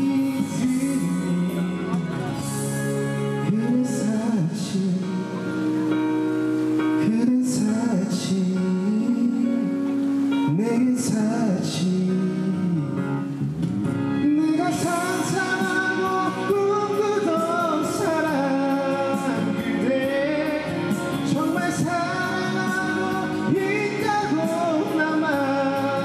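A song: a singing voice with instrumental accompaniment, the melody moving higher from about halfway through.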